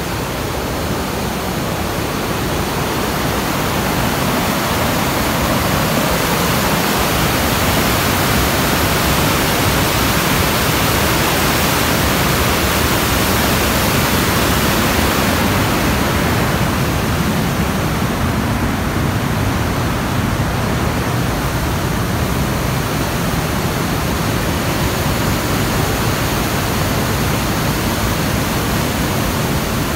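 Steady rushing noise of a waterfall's falling water, its higher hiss easing a little about halfway through.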